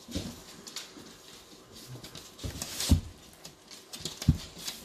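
Several dogs moving about close by on a hard floor: paws pattering and claws clicking, with two dull thumps, one near three seconds in and a second just after four seconds.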